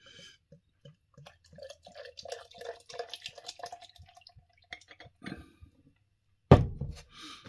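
Lager poured from a bottle into a glass tankard, glugging and fizzing as the glass fills. Near the end there is a single loud thump.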